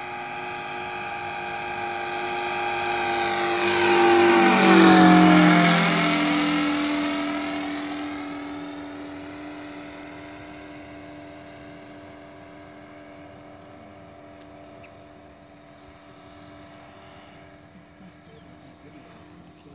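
Radio-controlled model Stearman biplane's fuel-burning engine and propeller in a flyby: the steady engine note swells to its loudest about five seconds in, drops in pitch as the plane goes past, then fades as it flies away.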